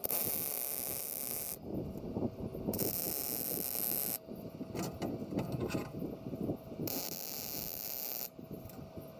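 Arc welder laying tack welds on a steel quick-hitch frame: three separate bursts of crackling arc hiss, each about a second and a half long, with clicking and handling noise in the pauses between them.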